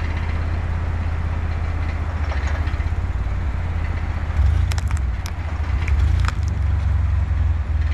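Jeep Wrangler JKU engine running low and steady as it crawls up onto a log, getting louder about halfway through. A quick run of sharp clicks and cracks follows.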